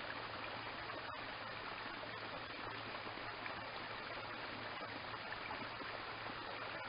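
Steady rush of running water with a low, even hum beneath it, and one faint click about a second in.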